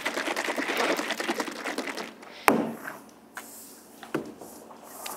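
A fast, dense run of clicks and taps for about two seconds, then one sharp loud click about halfway through and a lighter one a little later.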